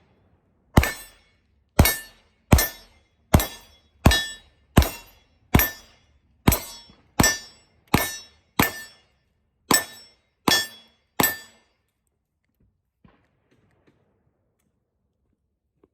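Springfield XD semi-automatic pistol fired fourteen times in a steady string, a little under one shot a second, emptying the rest of a 15-round magazine; the shots stop a little past the eleven-second mark and nothing follows.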